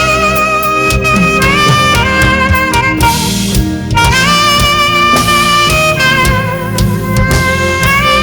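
Saxophone playing a slow gospel worship melody in long held notes, sliding up into several of them, over a backing band with a drum kit.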